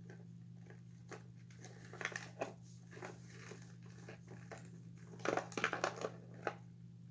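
Plastic parts of an animatronic toy figure being handled and pushed together: scattered small clicks and rustles, with a quick run of sharper clicks about five seconds in, over a steady low hum.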